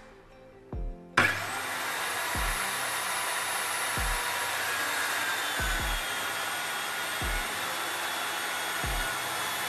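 Interskol DP-165/1300 circular saw switched on about a second in with a sudden start, then running steadily with a faint high whine as it begins a 45° bevel cut into a thin board.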